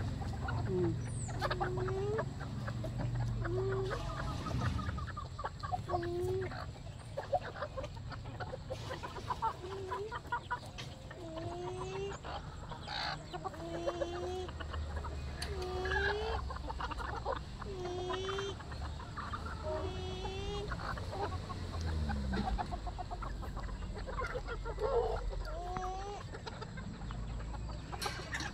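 A flock of chickens clucking, with short calls about once a second and a few higher chirps mixed in, over a steady low hum.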